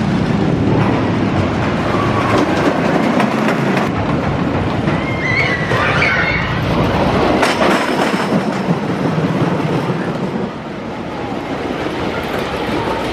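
Wooden roller coaster train running over its wooden track, a continuous rumble and clatter with sharp knocks. A brief wavering high-pitched sound comes about halfway through, and the rumble eases a little near the end.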